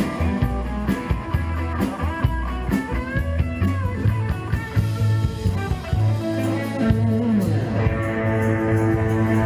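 Live rock band playing: electric guitar lead with bent, wavering notes over drums and bass. Near the end the drum hits stop and a held chord rings on.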